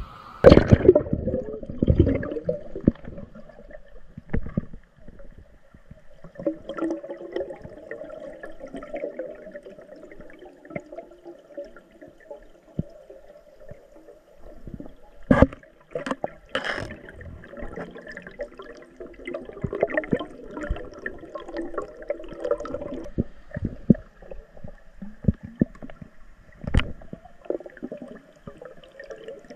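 Muffled water gurgling and bubbling, heard through a camera held underwater while spearfishing, loudest about a second in. A few sharp knocks come through about halfway and again near the end.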